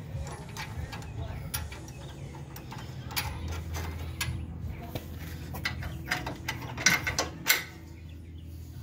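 Ratchet wrench clicking in short irregular runs as the end link bolt is run in, with a couple of louder metal clicks near the end.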